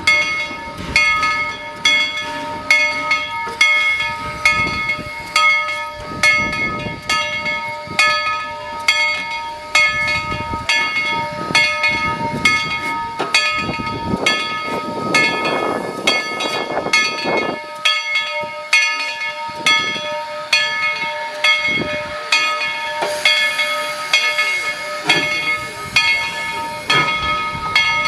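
Steam train running: a steady rhythm of beats about twice a second, with a constant high whine and steam hiss over it.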